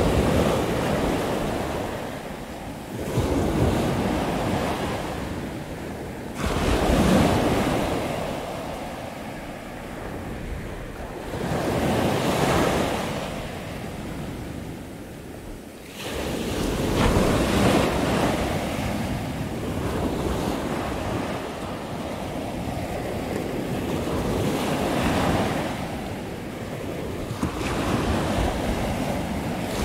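Pacific surf breaking and washing up a sandy beach, swelling and fading in irregular surges every few seconds.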